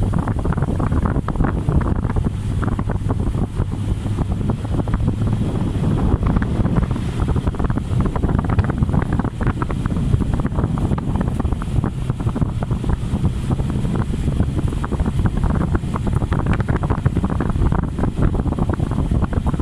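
Typhoon wind buffeting the microphone: a loud, steady, rough rumble with constant gusty flutter.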